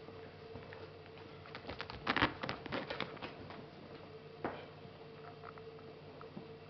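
A short flurry of scratchy rustling and scuffing as a kitten's paws scramble and claw on fabric bedding about two seconds in, with one more scuff a couple of seconds later. A faint steady hum runs underneath.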